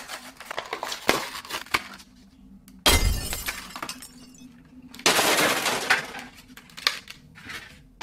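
Stiff clear plastic blister packaging crackling and snapping as it is worked open by hand. There are small clicks, then two louder bursts of crackling, about three seconds in and again about five seconds in.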